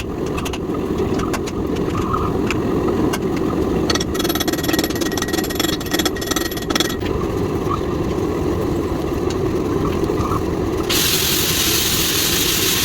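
A steady low mechanical roar with scattered light clicks. A higher whine joins it for about three seconds in the middle, and a loud hiss comes in near the end.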